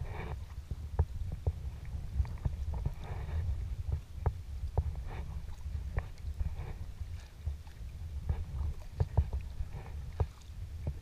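Sea kayak being paddled: soft water splashes at the paddle strokes, about one every second or so, with many small sharp knocks and clicks over a steady low rumble.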